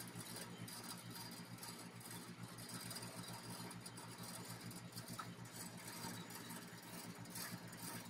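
Faint, steady low hum of an air conditioner's outdoor condensing unit running while refrigerant is drawn into it through gauge hoses.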